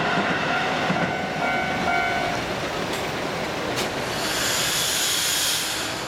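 Electric commuter train rumbling over and away from a level crossing, with the crossing's warning bell sounding in short repeated tones until about two seconds in. A sharp click or two follows, then a loud hiss near the end.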